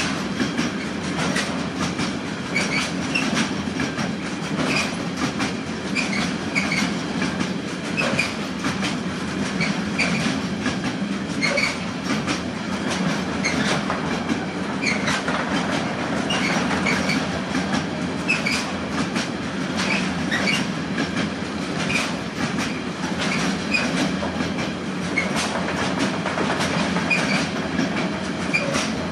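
Freight train of pocket wagons carrying lorry semi-trailers rolling past at steady speed: a continuous rolling rumble of steel wheels on rail, with frequent clicks and scattered short high squeaks from the running gear.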